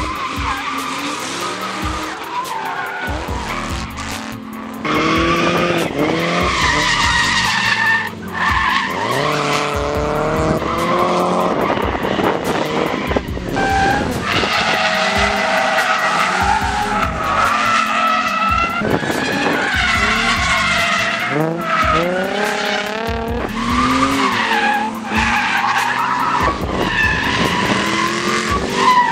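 Drift cars sliding with tires squealing and engines revving up and down. The sound gets louder about five seconds in as the cars pass closer.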